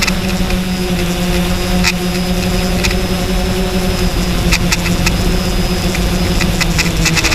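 Quadcopter's electric motors and propellers humming steadily, heard from the camera mounted on the craft, with wind rumble on the microphone and a few sharp ticks.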